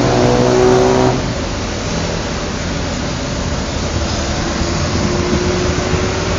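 Steady noise of road traffic on a highway. A pitched drone in the first second cuts off suddenly.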